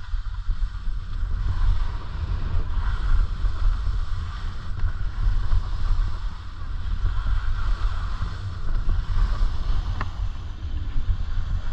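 Wind buffeting an action camera's microphone in a steady low rumble while skiing, with the hiss of skis sliding and scraping over snow rising and falling through the turns. Two short clicks sound near the end.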